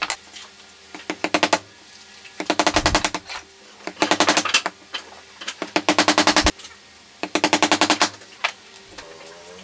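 A wood chisel being struck in rapid bursts of quick taps, five bursts in all, as it chops out the waste between the fingers of a comb joint in a wooden board.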